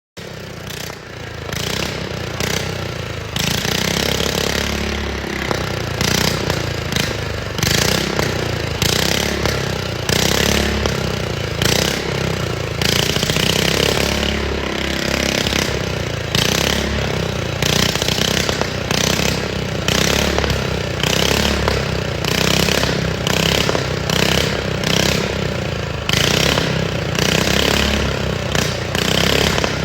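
Small lawn mower engine held against a two-step rev limiter, running at high revs with rapid crackling pops coming in repeated bursts: the limiter cutting the spark so that unburnt fuel fires in the exhaust, shooting flames.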